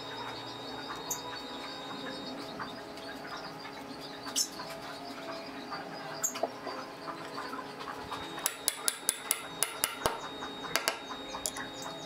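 A quick run of about eight light, sharp metal taps lasting a second and a half, then two more: a claw hammer tapping a hex nut into a laminated wooden knob. There are a couple of single knocks before it, over a steady background of faint tones.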